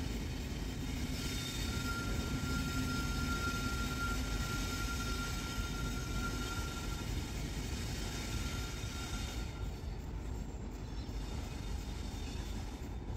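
Freight train's wagons rolling away, a steady low rumble with a thin high whine for a few seconds, the sound thinning out after about nine seconds as the train recedes.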